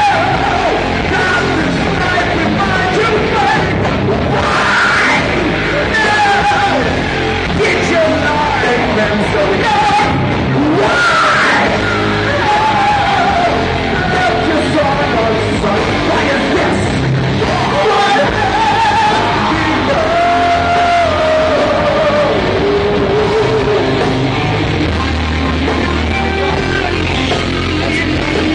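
Live rock band playing loud and without a break: drums and amplified instruments under a sung lead vocal.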